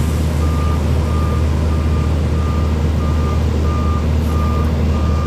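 Backup alarm on heavy demolition equipment beeping evenly, about one short beep every 0.7 seconds, over the loud steady drone of the machine's engine.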